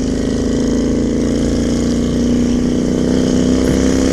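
Honda Shadow 600 V-twin engine running steadily while riding, its pitch rising slightly toward the end.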